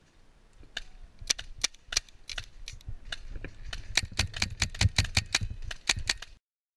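Paintball markers firing a long string of quick, uneven shots, sharp pops that grow denser toward the middle of the string and stop abruptly near the end.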